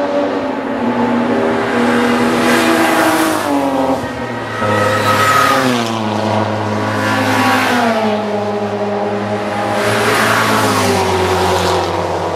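Race cars passing one after another at full speed, about four in turn, each engine note falling in pitch as it goes by, over a lower engine drone from other cars on the track.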